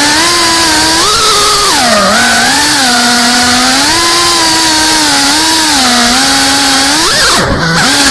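GEPRC Cinelog 35 cinewhoop's brushless motors and ducted propellers whining, heard from on board, over a steady hiss. The pitch rises and falls with the throttle, dipping sharply and swinging back up about seven and a half seconds in.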